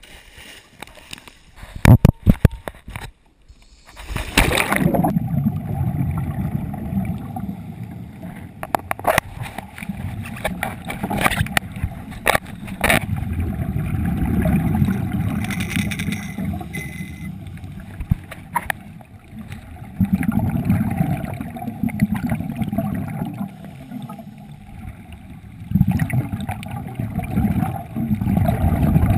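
Scuba entry into the sea: sharp splashes and knocks, then about four seconds in a loud rush as the GoPro in its waterproof housing goes under. After that a muffled underwater rumble with gurgling surges of exhaled regulator bubbles every few seconds.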